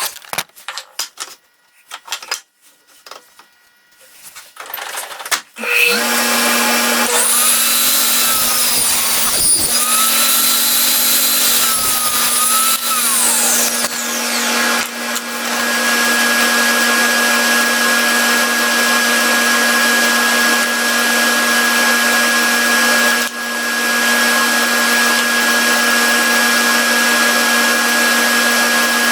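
Scattered clicks and knocks, then about six seconds in a power tool's electric motor starts and runs loudly and steadily, with a high whine that rises and falls for several seconds after it starts.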